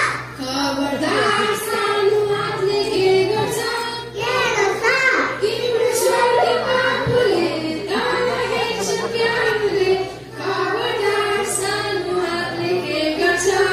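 Children singing a song with musical accompaniment, with a short break in the singing about ten seconds in.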